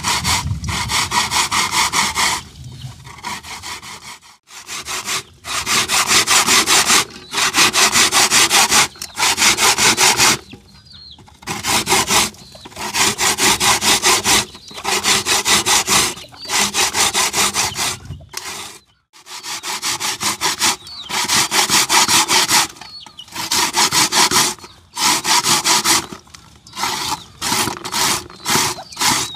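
Rasping, scraping strokes in runs of about one to two seconds with short pauses between: food being grated or milled by hand.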